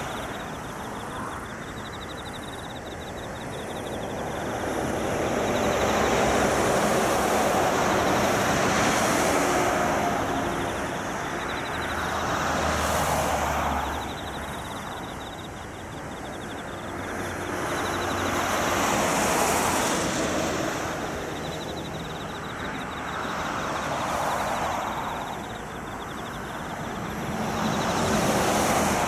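Expressway traffic going by: a continuous rush of tyre and engine noise that swells and fades every several seconds as vehicles pass, about five times.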